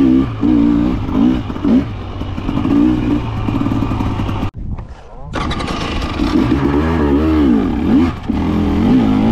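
Husqvarna TE300's fuel-injected two-stroke single-cylinder engine revving up and down on the throttle while riding trail. The sound cuts out abruptly for under a second about halfway through, then the engine picks up again.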